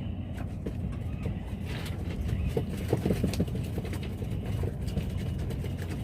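Small boat's engine running steadily with a low rumble, with a short run of clicks and knocks between two and three and a half seconds in.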